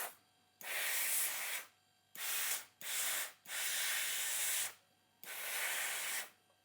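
Compressed air at about 8 bar blasting from the end of the air hose in five short bursts, each cut off sharply, as air is let through the freshly clamped hose connection to test it.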